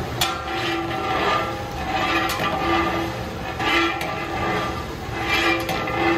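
A long metal ladle stirring and scraping inside a large aluminium cooking pot, a swish about every second or so, with the pot ringing in clear metallic tones that come and go. A steady low rumble runs underneath.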